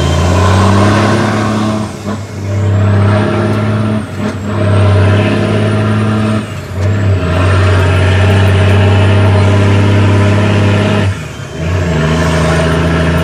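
Cummins ISX diesel engine of an International ProStar truck pulling steadily, with a faint high whine above it. It drops off briefly four times, the sound of gear changes on the 18-speed transmission while driving.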